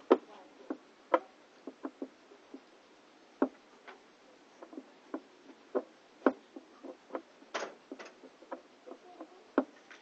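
Irregular light clicks and knocks, roughly two a second, from hands working on the underside of a washing machine.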